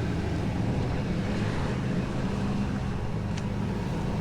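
Rollback tow truck's engine running steadily at idle, a low even hum.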